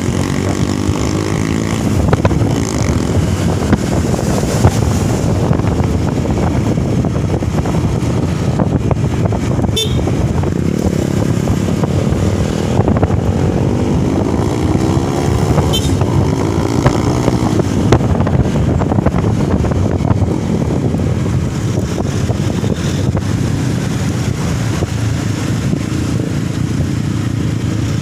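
Motor vehicle engine running steadily on a road, its pitch rising and falling now and then with speed, over road noise.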